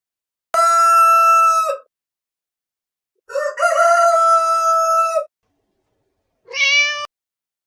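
Rooster crowing three times: two long crows and a short third one near the end.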